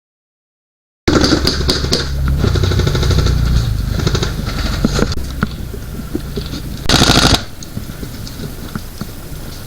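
After about a second of dead silence, airsoft guns firing: rapid short clicks and pops over a low rumbling noise, with a brief louder burst about seven seconds in.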